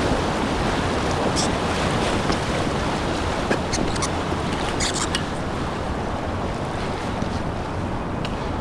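Steady rush of river water around a kayak, with wind buffeting the microphone and a few brief splashes, one about a second and a half in and a cluster about five seconds in.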